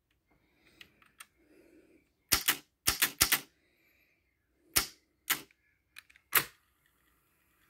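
Pioneer CT-F900 cassette deck's transport buttons and mechanism clacking as the deck is switched between modes. There are about a dozen sharp clicks, several in quick pairs, with a faint whir of the reel spindles and idler between them. The deck is running properly on its original idler tire, now pushed up by a stronger spring.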